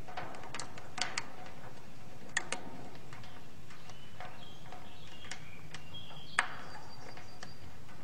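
Irregular sharp clicks and taps of a white cockatoo's beak working at wire mesh, a few at a time, with the loudest single click about six seconds in.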